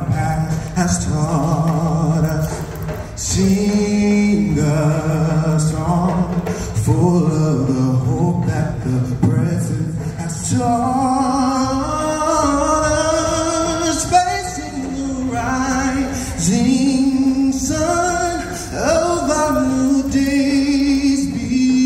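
Live music with male singing, amplified through an outdoor stage's speakers: long held sung notes, lower at first, with the melody moving higher about ten seconds in.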